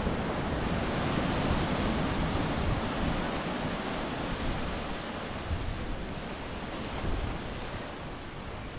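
Pacific Ocean surf washing onto the beach, a steady rush that swells over the first few seconds and then slowly eases, with wind buffeting the microphone.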